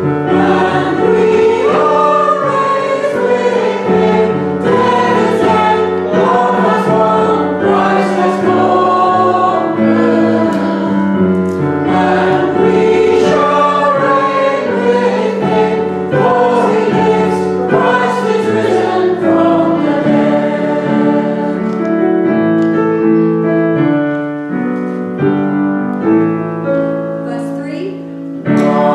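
A choir singing a hymn, with a quieter stretch near the end before the singing swells again.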